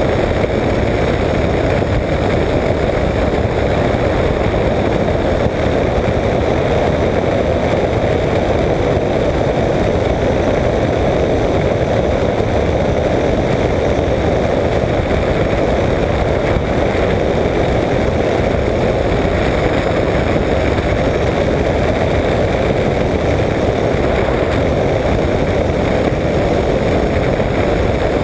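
Apollo Jet Star flexwing microlight trike in steady level flight: its pusher engine and propeller run at a constant cruise setting, blended with wind rushing over the on-board microphone, unchanging throughout.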